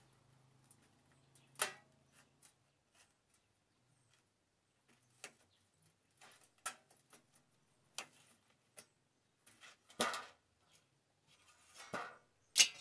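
Scrap metal bars and strips knocking and clanking as they are handled and set against a steel sheet: a scatter of separate sharp knocks, some ringing briefly. The loudest knock comes near the end.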